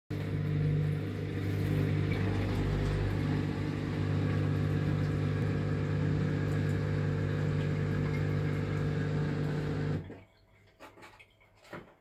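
Samsung dishwasher running with a steady mechanical hum that cuts off abruptly about ten seconds in, followed by a few faint clicks. The machine then halts on its 1E error code.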